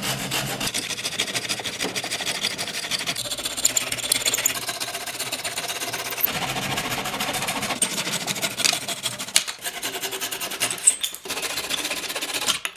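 A flush-cut hand saw cutting protruding wooden finger-joint strips flush with the chair frame: a rapid, rasping run of short back-and-forth saw strokes, with a couple of brief breaks near the end.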